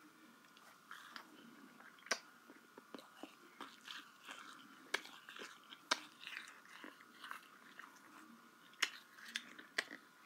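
Faint, irregular clicks and crackles, a few of them sharper, over a faint steady high whine.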